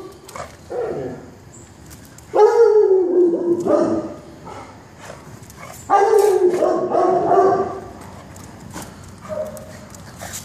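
A dog vocalizing during rough play with another dog: two loud, drawn-out bark-howls, each about a second and a half long and falling slightly in pitch, about two and a half and six seconds in, with shorter, quieter sounds between.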